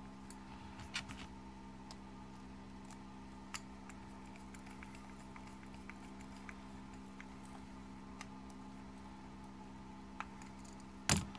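Faint scattered ticks and clicks of a small hand driver working the screws of a 1.9-inch RC crawler wheel, over a steady low hum, with a sharper knock near the end.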